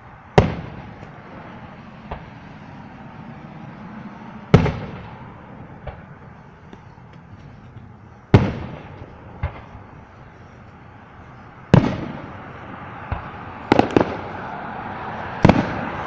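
Fireworks going off: five loud bangs about every four seconds, each fading away in a rolling echo, with smaller pops between them.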